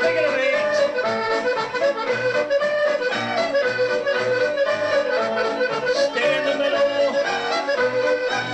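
Dance music with a melody of held notes over a steady beat.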